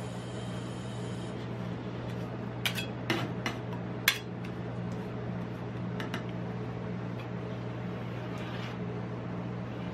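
Metal spatulas scraping and tapping on the steel cold plate of a rolled ice cream machine while ice cream is spread on it, with a cluster of sharp clicks about three to four seconds in and two more about six seconds in. A steady low hum runs underneath.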